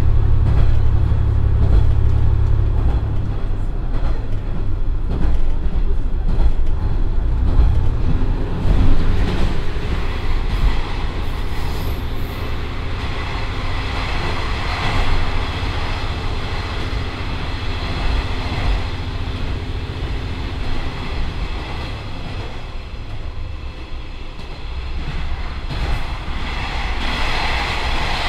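Inside the passenger cabin of a JR Shikoku 1500 series diesel railcar running at about 70–80 km/h. Its Komatsu common-rail six-cylinder diesel engine runs strongly for the first three seconds or so, then eases off, leaving the steady rumble of wheels on rail as the car coasts and slows slightly.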